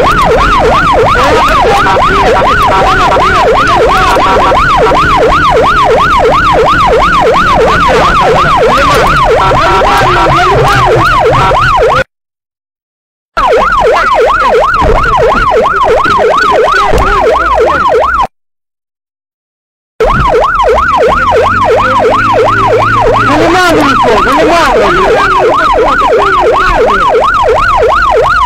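Police car siren in a fast yelp, its pitch swinging rapidly up and down, loud and continuous. The sound cuts out completely twice, for a second or two each time.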